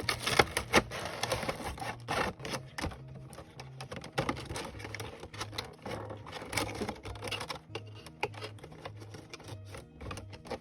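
Cardboard figure box being torn apart and crushed by hand: rapid crackling, tearing and thumps, densest in the first few seconds and then sparser. Background music with a steady low beat runs underneath.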